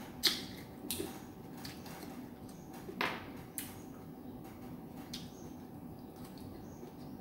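Lychee's brittle skin cracked and peeled off by hand, giving a few sharp crackling clicks, the loudest just after the start and about three seconds in, over a steady low hum.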